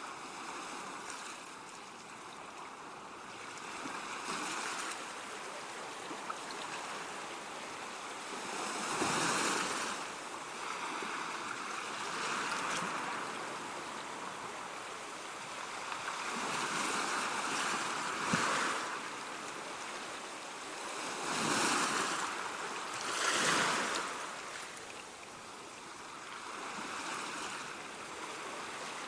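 Ocean surf: waves breaking and washing in as a steady hiss that swells into a louder surge every few seconds, the strongest about a third of the way in and twice in quick succession near the end.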